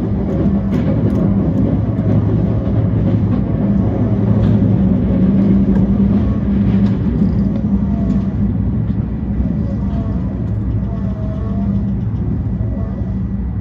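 E235 series electric train running at speed, a steady rumble of wheels on rails with a low hum, faint pitch-gliding tones and scattered light ticks.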